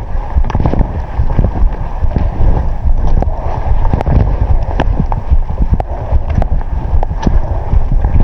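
Wind buffeting the microphone in a loud, steady rumble, with irregular sharp clicks and knocks throughout.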